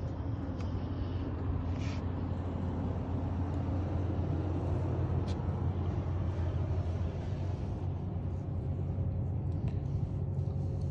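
Steady low rumble of the 2020 Ford F-250 Super Duty pickup's engine idling, over an even outdoor hiss, with a few faint knocks in the first couple of seconds.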